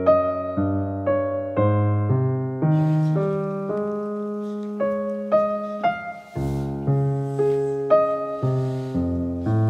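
Background piano music, notes struck about every half second.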